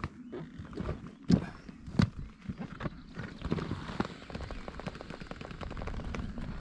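Pro Marine Forsage 320 inflatable boat's PVC hull being handled and rolled up: a few sharp knocks in the first two seconds, then a run of small, fast clicks and rustling of the fabric.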